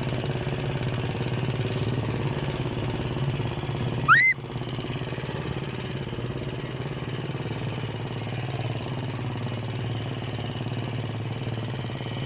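Engine of a Luch walk-behind tractor running steadily while towing a loaded trailer. About four seconds in there is one brief, loud rising squeal.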